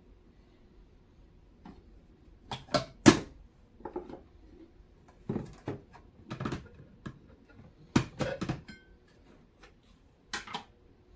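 Kitchenware being handled: a series of short, light knocks and clatters in small groups, with pauses between them.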